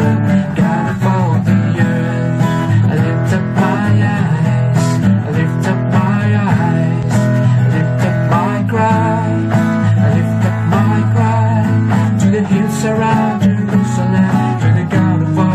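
Praise-and-worship music led by strummed acoustic guitar, running steadily.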